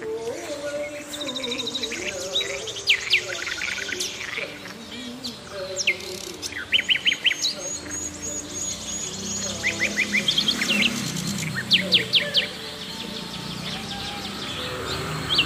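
Birds chirping and calling in quick runs of short, high notes that come every second or two.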